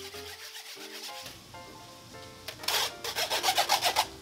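Beaten eggs being pushed through a fine wire-mesh strainer, a utensil scraping quickly back and forth against the mesh. The fast rasping strokes start about two and a half seconds in, over soft background music.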